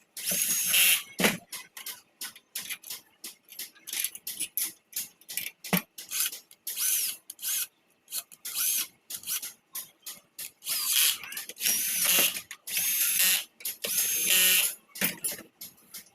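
Handheld power drill run in short bursts, its motor whine rising and falling with each pull of the trigger, among sharp clicks of tools.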